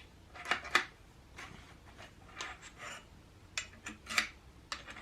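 Light clicks and clinks of small metal parts being handled: star nuts and fittings picked up and tried in a fork's steering stem, about half a dozen short knocks scattered through.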